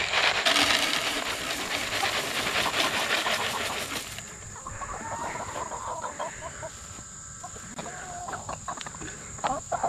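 Chicken scratch grain poured from a plastic tub, hissing and rattling onto a wooden tray for about four seconds. Then hens cluck softly as they gather round.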